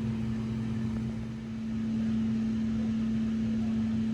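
Steady machine hum with one low, even tone, like a small motor or fan running. It dips briefly about a second in, then carries on slightly louder.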